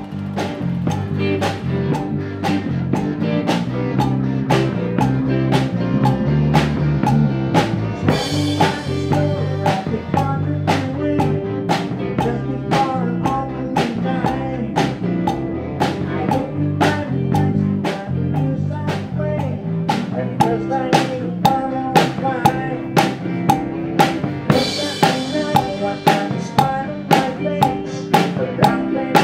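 A live band playing an instrumental number: an electric guitar over a drum kit keeping a steady beat of about two strokes a second. Cymbal crashes come about eight seconds in and again about twenty-five seconds in.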